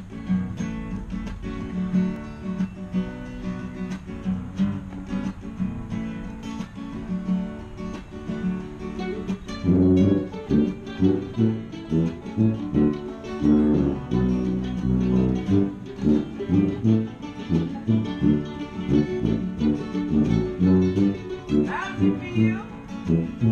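Acoustic guitar playing alone, then about ten seconds in the rest of a small acoustic band with a tuba joins, the tuba's bass notes pulsing on the beat.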